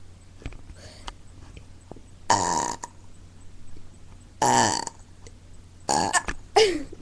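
A person burping out loud four times, each burp short, the last one falling in pitch.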